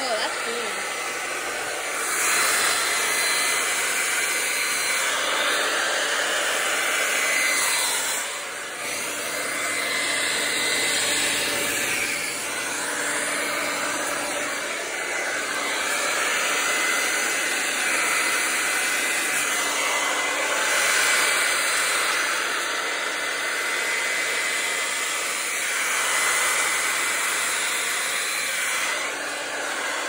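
Handheld hair dryer running on its cool setting: a steady rush of blown air with a faint high whine, swelling and easing as it is moved around, with a brief dip about a third of the way through.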